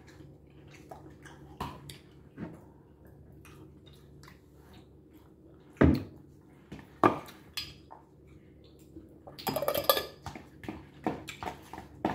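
Metal fork clinking and scraping against a glass bowl, with small mouth and chewing clicks between. Two sharp clinks come about six and seven seconds in, and a short burst of scraping and clatter follows near ten seconds.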